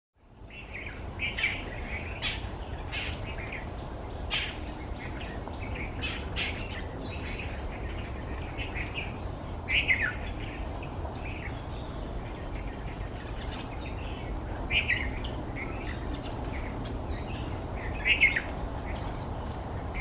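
Birds chirping: a steady run of short, high calls with a few louder ones, two of them falling in pitch, about halfway and near the end, over a steady low background rumble.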